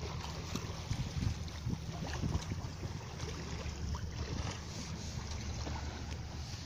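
Wind buffeting the phone's microphone aboard a sailboat under sail, a steady low rumble with scattered small knocks.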